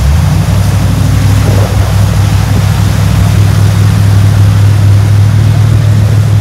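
Engine of a tube-frame mud buggy on large mud tires running loud and steady under load as it churns through a mud pit. The tires splash mud and water over a low engine drone that holds one pitch after a brief shift at the start.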